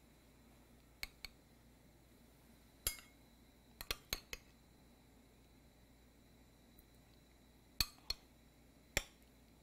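A metal utensil clinking against a glass bowl and a porcelain dish as pickled eggplants are spooned out. There are about ten light, sharp clinks spread out, with a quick run of four about four seconds in.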